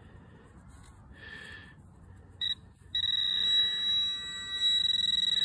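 Handheld metal-detecting pinpointer giving a short beep about two and a half seconds in, then sounding a steady high-pitched tone from about three seconds: it is held over a buried metal target.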